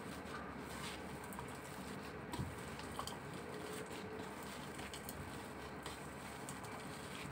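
Raw pork and beef mince mixed with chopped onion and breadcrumbs being squeezed and kneaded by a gloved hand in a stainless steel bowl: faint squishing of the wet meat over a steady hiss, with a few soft knocks.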